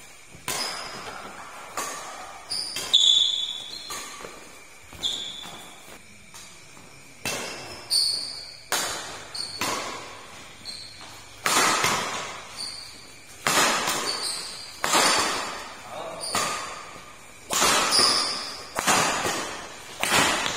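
Badminton rackets hitting a shuttlecock back and forth in a doubles rally: sharp smacks about every second or so, each echoing in the hall.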